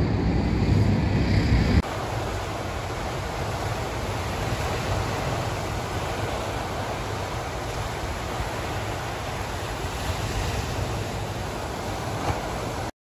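Sea surf breaking on a rocky shore, a steady rush of waves, after a couple of seconds of loud low rumble at the start; it cuts off suddenly near the end.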